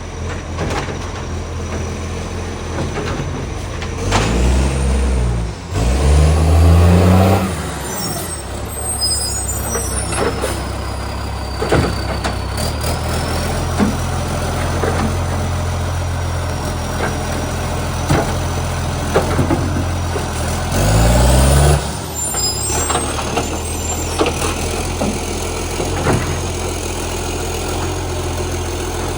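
Garbage truck's diesel engine idling, revved up and back down twice about four to seven seconds in and once more near twenty-one seconds, each rev very loud through a leaking exhaust pipe. Scattered short knocks sound over the idle.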